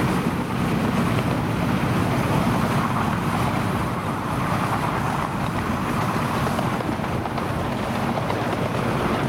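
Riding on a miniature railway train hauled by a diesel locomotive: a steady rumble of the running train, with wind noise on the microphone.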